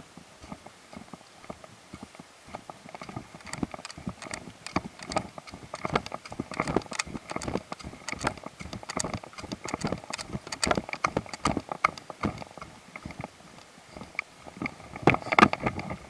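Footsteps walking on a concrete road strewn with wet leaves and twigs: a steady, uneven run of steps and small clicks, loudest in the middle and again near the end.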